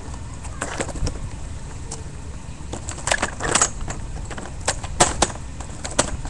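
A scattering of short, sharp clicks and knocks over a steady low rumble, several close together about three seconds in and the loudest pair about five seconds in.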